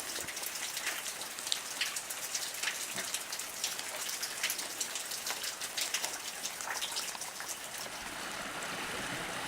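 Water dripping and spattering in many irregular small drops over the sound of running water. Near the end the drips stop and a steady creek flow takes over.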